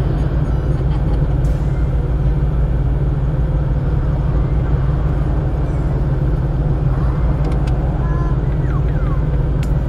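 Steady low rumble of motor vehicles running: a deep, even hum that holds without change.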